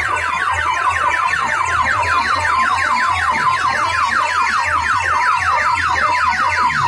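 A DJ sound system's horn speakers and bass boxes blast an electronic siren-like effect: a rapidly repeating falling warble, several sweeps a second, over a deep pulsing bass. It is the kind of loud test or competition track played in a sound-system face-off.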